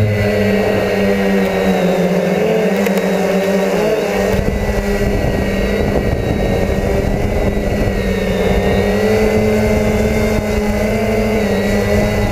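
DJI F450 quadcopter's electric motors and propellers whining steadily in flight, heard from the on-board camera. The pitch dips and recovers about four seconds in and wavers again later.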